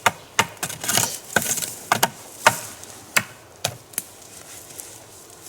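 About ten sharp, irregular cracks and knocks of dry sticks and forest litter being handled and snapped while the ground around a campfire pit is cleared.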